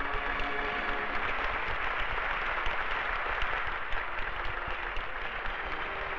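Audience and performers applauding: dense, steady clapping in a concert hall.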